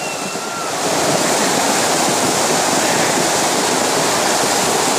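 Flash-flood torrent of muddy brown water rushing over and past rocks: a dense, steady rush of water that gets louder about a second in.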